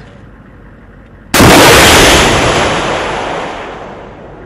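TOW anti-tank missile firing: a sudden loud blast about a second in, followed by a rushing roar that fades away over about three seconds.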